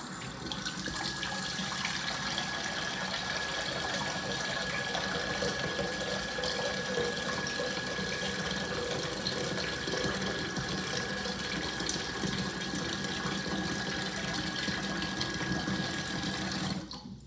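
Water running steadily from a tap, a continuous rush with a thin steady whine in it, cut off abruptly near the end.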